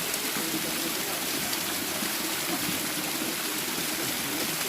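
Stream of mountain water flowing, a steady rushing.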